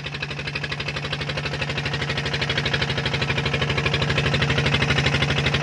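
Fishing boat's engine running steadily with a fast, even beat, slowly getting louder.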